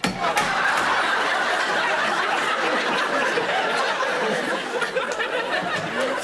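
Studio audience laughing, a dense steady wash of laughter that eases near the end.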